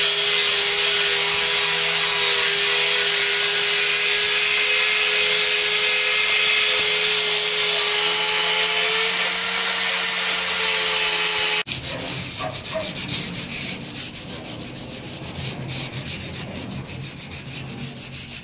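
Handheld angle grinder running steadily against a leaf-spring steel blade, a steady whine with grinding hiss. About two-thirds of the way through it cuts off suddenly, and quieter rapid rubbing strokes on the blade follow.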